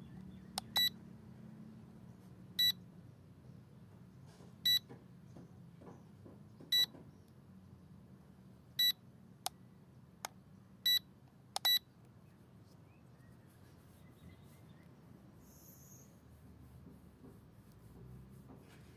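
Short electronic beeps from the S9S drone kit, each a single high tone, repeating about every two seconds for seven beeps and then stopping.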